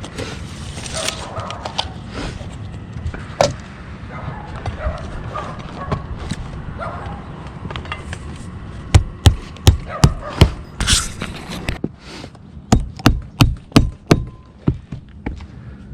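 Hammer blows, a quick run of sharp strikes about two a second through the second half, after a stretch of scraping and handling noise.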